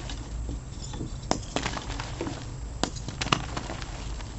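Dyed gym chalk blocks being crushed and crumbled between the fingers: dry crunching and crackling with a few sharper cracks, one about a second and a half in and two near three seconds in.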